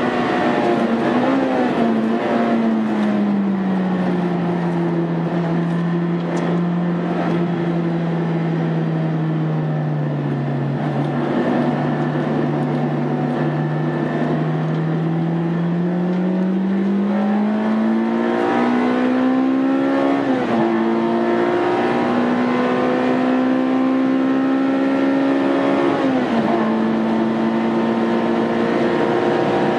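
Honda Integra Type R's four-cylinder engine under way on track: its pitch falls slowly for several seconds, holds low, then climbs steadily again. Later it runs high with two brief dips in pitch, one in the middle and one about four-fifths of the way through.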